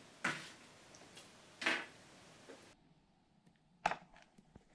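Pieces of sliced raw goose breast dropped by hand into a plastic bowl, two short soft splats with rustle. Near the end, one sharp knock and a few faint ticks.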